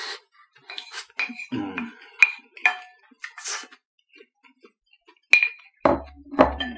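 Wooden spoon clinking and scraping on a plate as fried rice is scooped up and eaten, with a few short eating noises in between. Near the end come two dull knocks, as of the plate meeting the table.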